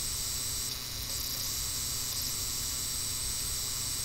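Steady background hiss with a low hum underneath: the recording's noise floor, with no distinct event.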